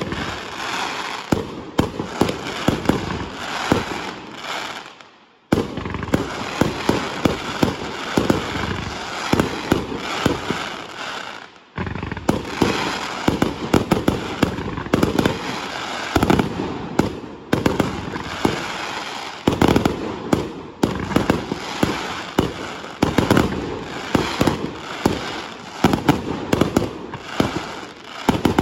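Fireworks going off in a dense, rapid string of bangs and crackles. Twice the firing dies away, then starts again abruptly.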